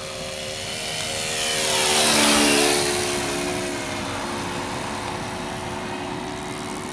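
ASP 5cc four-stroke engine of a radio-controlled Pietenpol Air Camper model plane on a low flyby. The engine note grows louder, peaks and drops in pitch about two seconds in as the plane passes, then fades as it climbs away.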